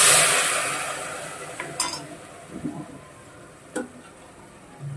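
Water poured into a hot pot of fried vegetables and masala, sizzling into steam, the hiss dying away over the first second or two. Then a light metal clink about two seconds in and a sharp tap near four seconds.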